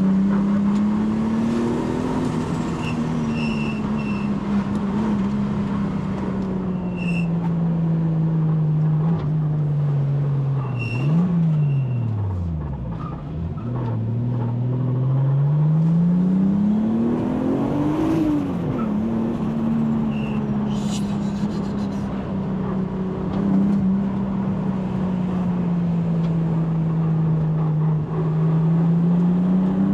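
Nissan Skyline GTT's RB25DETT Neo 2.5-litre twin-turbo inline-six running under light, stop-start driving, heard from the cabin: the revs rise and fall slowly, drop away sharply about a third of the way through, then climb again. A few brief faint high tones sound over it.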